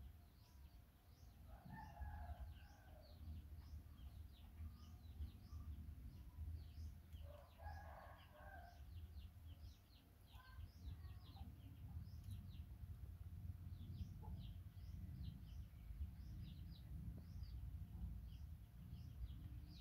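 Background of many small birds chirping rapidly and continuously, with two brief lower-pitched animal calls about two seconds and eight seconds in, over a steady low rumble.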